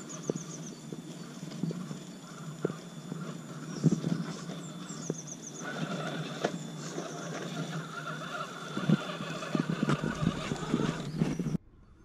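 Axial SCX10 RC crawler driving along a log: its electric motor and gears whine as the throttle comes and goes, with irregular knocks and clicks from the tyres and chassis on the wood. The sound gets busier about halfway through. Birds chirp briefly in the background, and everything drops away abruptly just before the end.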